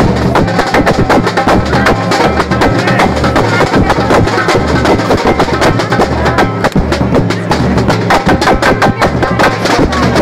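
Football supporters' samba drum section (bateria) playing a dense, continuous rhythm, with surdo bass drums pulsing under many quicker drum strokes.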